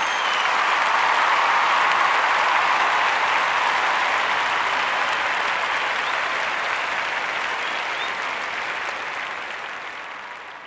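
Crowd applauding, a dense steady clapping with a couple of short whistles, fading out over the last few seconds.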